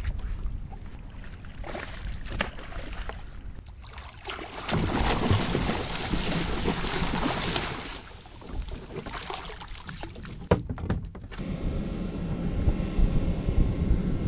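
Wind buffeting a camera microphone and water splashing around a fishing surf ski at sea, with scattered sharp knocks. The rushing noise swells for a few seconds in the middle and drops off abruptly.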